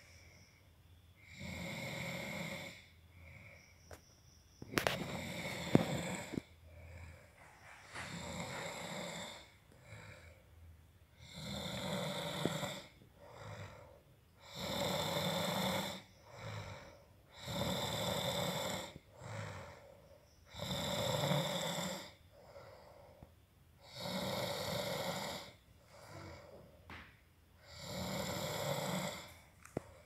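A sleeping man snoring with his mouth open: about nine long snores in a steady rhythm, one roughly every three seconds, with quiet breaths between. A brief sharp click about five seconds in.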